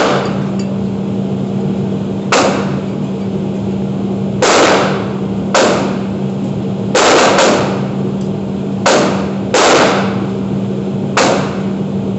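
Gunshots at a shooting range: about nine single shots at uneven intervals, some in quick pairs, each with a short echoing tail, over a steady low hum.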